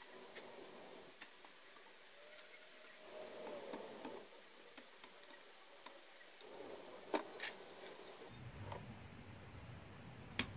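Sparse small clicks and light scraping of hand tools against the plastic and metal parts of a dismantled chainsaw engine, with a few sharper taps. A faint low hum comes in about eight seconds in.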